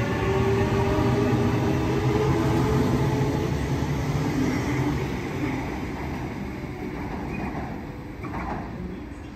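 Sydney Trains H set (OSCAR) double-deck electric train running past the platform. Wheel and rail noise carries a few steady tones, fading away from about halfway through as the last car goes by.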